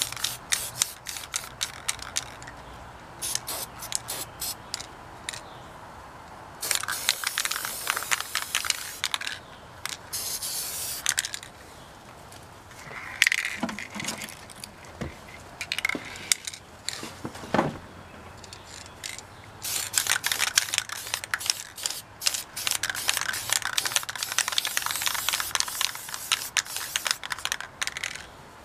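Aerosol spray paint can hissing in several bursts a few seconds long, the longest near the end, with short clicks and knocks in between.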